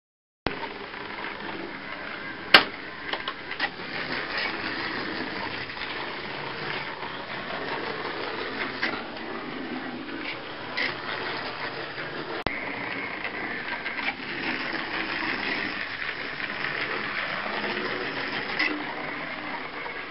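Small electric motor and gears of a model trolleybus running along its layout: a steady whirring with scattered sharp clicks, the loudest about two and a half seconds in.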